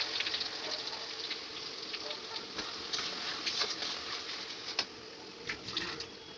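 Food sizzling in hot oil, a steady hiss fading slightly, with scattered sharp pops and crackles.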